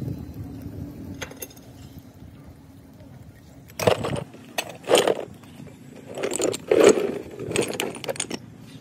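Broken cast iron scrap pieces clattering and clinking against each other and a metal tin as they are scooped up and tipped out onto the ground, in several loud rattling bursts starting about four seconds in.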